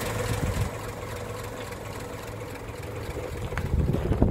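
1937 Chevrolet Master's overhead-valve inline six running at a steady idle, with wind buffeting the microphone near the end.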